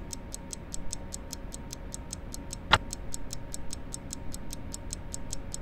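Clock ticking, a fast, even run of light ticks about five a second, with one louder knock about halfway through.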